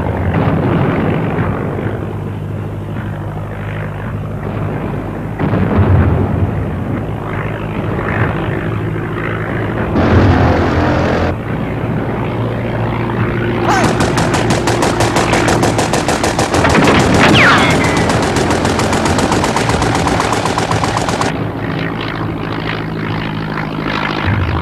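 Propeller-driven aeroplane engine droning steadily. A short burst of machine-gun fire comes about ten seconds in, and a long burst of rapid machine-gun fire runs for about seven seconds later on.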